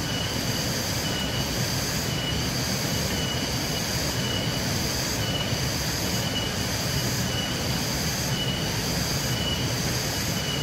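Forest insects calling in a high-pitched chorus that pulses about once a second, over a steady low rushing noise.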